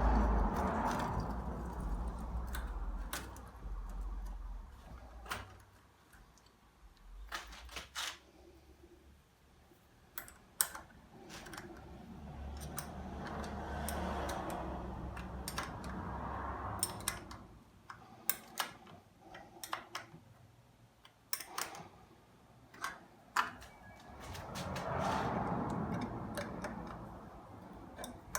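Scattered clicks and clinks of small metal parts and hand tools being handled, with a few longer rubbing sounds in between.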